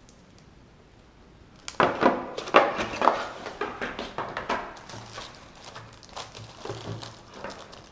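Packaging being handled during an unboxing: a quick burst of knocks, clicks and rustles starts about two seconds in and tapers off.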